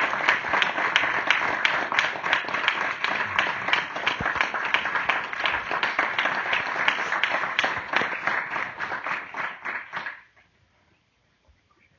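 Audience applauding, a dense run of claps that dies away about ten seconds in, leaving near silence.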